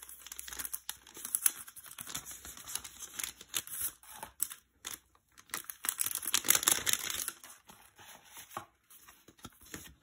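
Clear plastic cellophane bag crinkling as it is torn open and a stack of paper ephemera is slid out of it. The crinkling comes in two louder spells, the second about six seconds in, then quieter handling of the papers.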